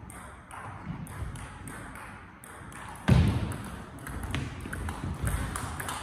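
Table tennis rally: the ball clicks sharply off the bats and table in quick succession, starting with a loud thump about three seconds in. Low thumps from the players' footwork on the hall floor run under it.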